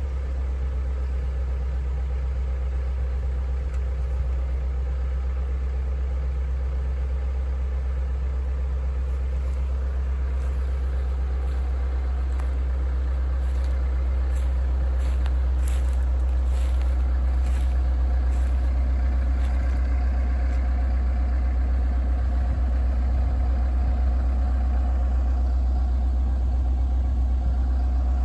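Kobelco excavator's diesel engine running steadily, a deep even hum.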